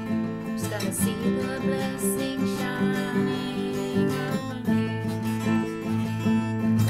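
Acoustic guitar strummed, one ringing chord after another in a steady rhythm.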